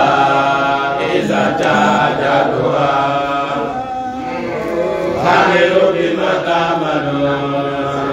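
A man chanting an Islamic religious recitation in a melodic, drawn-out style, the voice continuous with long held notes.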